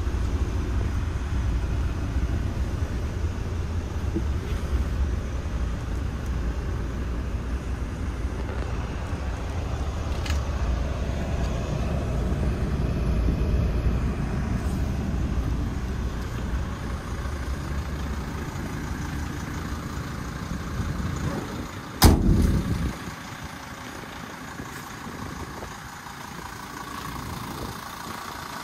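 The Dodge Sprinter's 2.7-litre five-cylinder Mercedes turbodiesel idles with a steady low rumble, heard from inside the cab. About three-quarters of the way through, a van door slams once, loud and sharp. The idle then carries on quieter, heard from outside the van.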